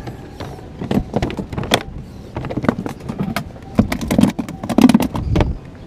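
A plastic ice cooler being handled, its lid opened and shut: a run of knocks and rattles starting about a second in, loudest near the end.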